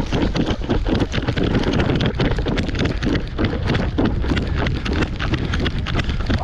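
Rapid, irregular running footfalls, several a second, over wind rumbling on the microphone.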